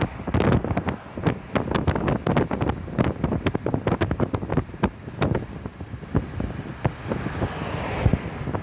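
Wind buffeting the microphone in irregular gusts, with rapid uneven pops over a low rumble.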